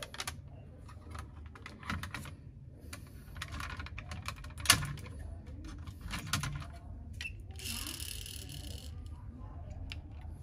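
Clicks and knocks of a plastic toy car-carrier truck and a die-cast metal toy taxi being handled, a run of small irregular clicks with one sharper knock about halfway. A short scraping rush comes about three-quarters through.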